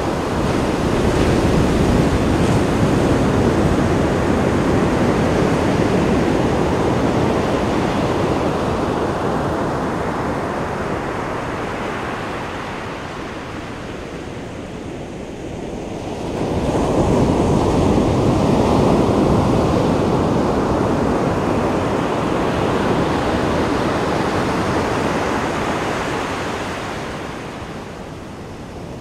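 Pacific Ocean surf breaking on a sandy beach. A wave crashes near the start and slowly washes out; another surges in sharply a little past halfway, then slowly recedes near the end.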